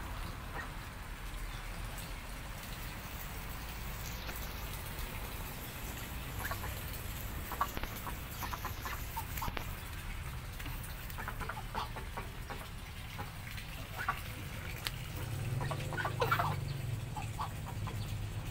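Poultry giving short calls, in quick clusters through the middle and latter part, over a steady low background rumble.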